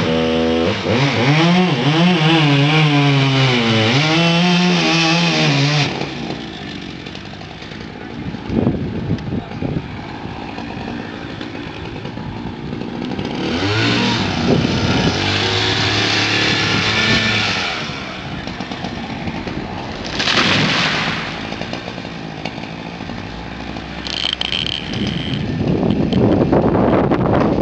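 Chainsaw cutting felled linden trunks: its engine rises and falls in pitch under load for about six seconds, then runs more steadily later, with a short burst of revving and another loud cut near the end.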